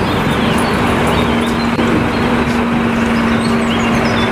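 Bus engine running steadily: a noisy rumble with a constant hum, and birds chirping now and then over it.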